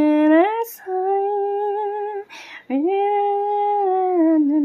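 A woman singing a slow tune in long held notes, sliding up into each note, with short pauses between phrases.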